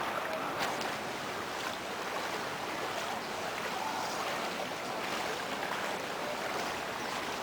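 Steady rushing of flash-flood water, an even hiss with a couple of faint knocks in the first two seconds.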